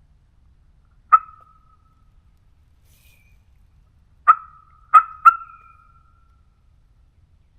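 Turkey clucks: four short, sharp, loud notes, one about a second in and three in quick succession a few seconds later, each ringing briefly.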